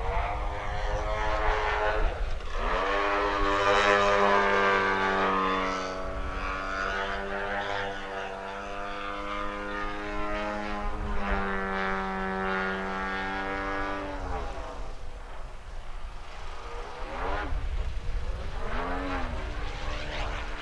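Radio-controlled aerobatic model aeroplane's engine and propeller running under power overhead, a steady drone that climbs in pitch about two seconds in and drops away around fourteen seconds. Two short rising-and-falling swoops in pitch follow near the end as the plane passes.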